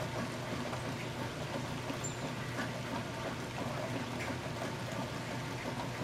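Steady rain falling in woodland, an even hiss with a few faint scattered drop ticks, over a low steady hum.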